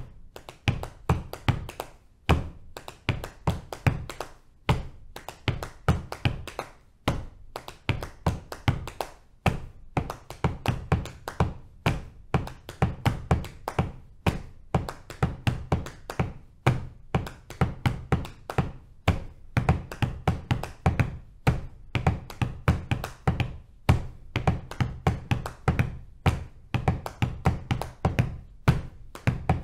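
Body percussion in a 5:4:3:2 polyrhythm: hands patting the thighs and feet tapping the floor as four interlocking pulses, many taps a second with heavier low thumps among lighter slaps, repeating in a steady cycle.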